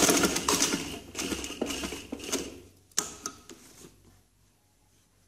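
Domestic sewing machine running a line of stitches, a fast rattling clatter of the needle and feed, stopping after about two and a half seconds. A single click follows about a second later, then a soft rustle of fabric being handled.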